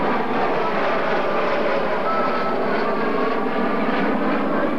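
Rockwell B-1B Lancer's four General Electric F101 turbofans: loud, steady jet noise as the bomber flies a banking pass overhead, with faint whining tones drifting through it.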